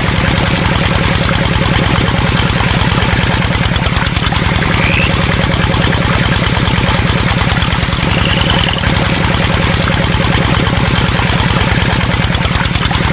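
Small engine running steadily with a fast, even low chugging. A few short, high rising chirps come about every four seconds.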